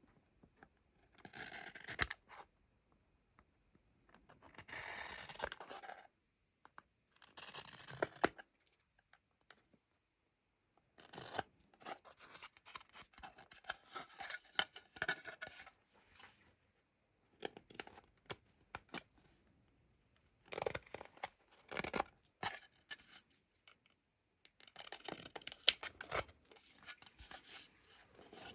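Hand deburring tool's blade shaving the edge of a 3D-printed plastic part, in a series of slow scraping strokes of one to several seconds each with short pauses between.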